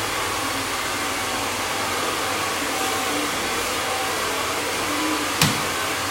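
Hair dryer running steadily, a constant rush of air. A single sharp click about five seconds in.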